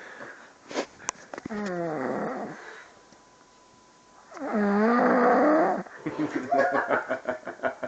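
A man snoring loudly and throatily. A drawn-out snore comes about a second and a half in and a louder one about halfway through, and it ends in a rattling run of quick pulses.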